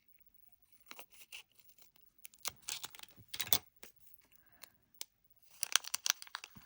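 Crinkling and tearing of a resealed packet of nail-polish strips being pulled open and handled, in irregular crackly bursts.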